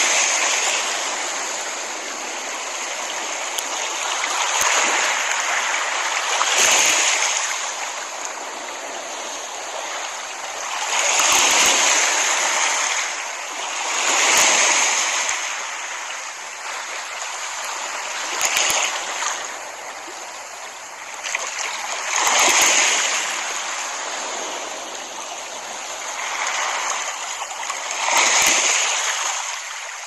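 Small ocean waves breaking and washing up a sandy beach. The surf swells and ebbs every few seconds.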